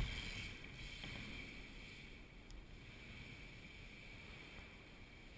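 A sharp knock at the start, then the steady hiss of BMX tyres rolling over wooden skatepark ramps, with a fainter knock about a second in.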